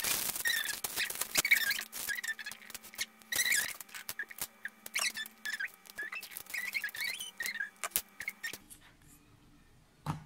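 Plastic bag crinkling and squeaking as it is handled, with many small crackles, stopping about eight seconds in. A single click near the end.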